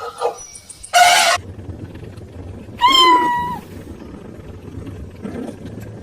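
Kitten meowing twice: a short call about a second in, then a longer, high-pitched meow about three seconds in that bends down at its end.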